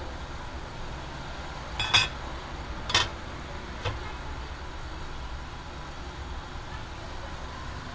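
Metal clutch parts knocking as a sintered clutch disc is handled and set onto a flywheel: sharp knocks about two and three seconds in, a lighter one near four seconds, over a steady low hum.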